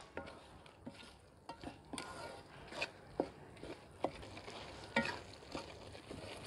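Wooden spatula stirring boondi through thick sugar syrup in a metal pot, with irregular soft knocks and scrapes against the pot about once or twice a second. A faint sizzle runs underneath as the boondi cooks in the syrup until it soaks it all up.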